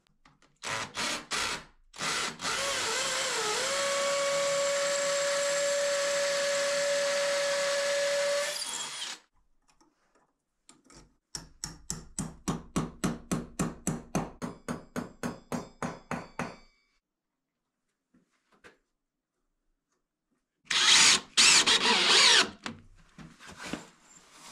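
A power drill starts with a few short trigger pulses, then runs steadily for about seven seconds, its pitch dipping briefly as it bites before holding level. After a pause, a hammer strikes at a metal bracket on a wooden batten about four times a second for some five seconds, and near the end comes another short, loud burst of power-tool noise.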